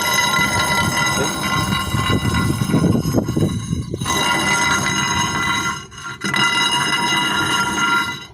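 Worn wheel bearing spinning after being washed with gasoline: a steady metallic whine with several high ringing tones over a rough rumble, dropping out briefly twice. The bearing still needs replacing.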